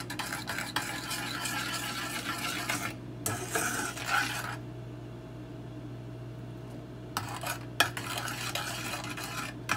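Metal spoon stirring chocolate glaze in a stainless steel saucepan, scraping and clinking against the pan. The stirring stops for a couple of seconds in the middle, then starts again.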